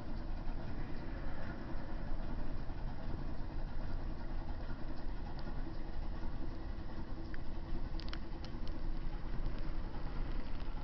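Steady low rumble of running machinery with a faint hum, and a few faint ticks about eight seconds in.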